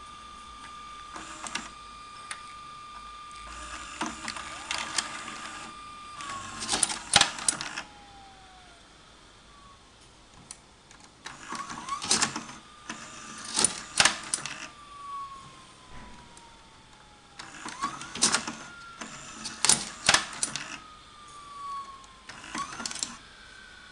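VHS video recorder's mechanism clicking and clunking in several bursts, with a motor whine that holds steady, then slides slowly down in pitch as it winds down, three or four times over.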